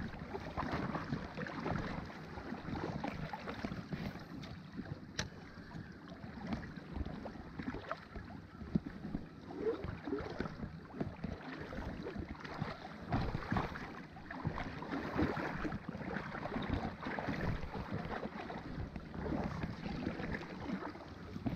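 Shallow creek water rushing and gurgling over rocks close by, an uneven, constantly changing splashing wash. A single sharp click about five seconds in.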